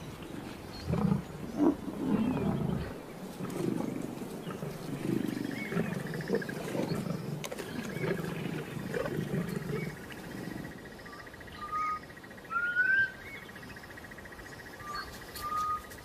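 Male lions growling over a freshly killed buffalo calf, in deep, irregular rumbles for about the first ten seconds. Then the growling stops and short, rising bird chirps are heard.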